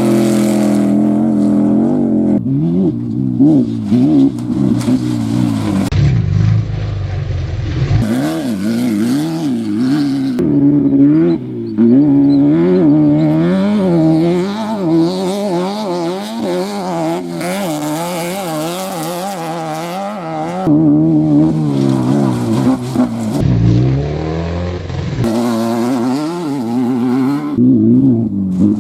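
Off-road race vehicle engines revving hard, their pitch repeatedly rising and falling with the throttle. Heavy low rumble comes in a few short stretches, and the engine sound changes abruptly several times.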